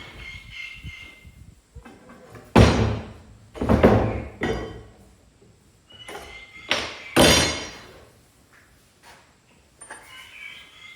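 Heavy wooden thuds and knocks as lumber and the wooden brooder frame are handled and set down: five loud hits, irregularly spaced, in the middle stretch.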